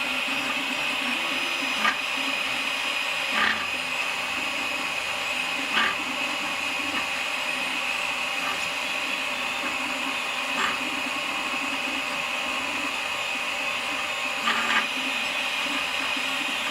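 Malyan M150 3D printer running, with a steady high whine and about six brief rattles at irregular moments as the bed travels along the Y axis. The rattle is blamed on the poor linear bearings under the bed.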